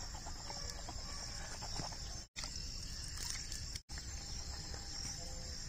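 Steady high-pitched chirring of insects, crickets by the sound of it, over low outdoor background noise. The sound drops out completely for an instant twice.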